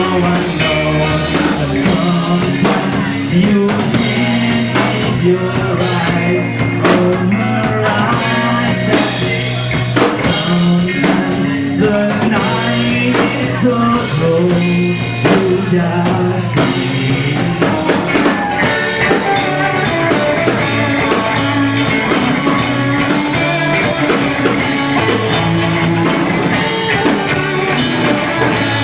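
Rock band playing live, with electric guitar, bass and drum kit in an instrumental passage.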